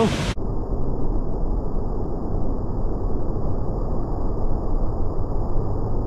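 Waterfall on a fast, full river rushing steadily, heard muffled with no high end. A voice cuts off abruptly just as it begins.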